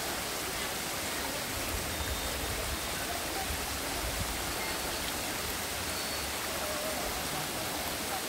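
Water running and splashing down small rock cascades, a steady even hiss.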